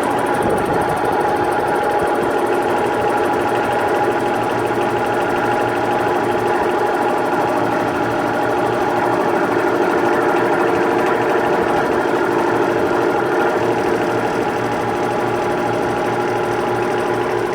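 Failing air-conditioner fan motor running with a steady hum and a rapid mechanical rattle: the motor is on its last legs.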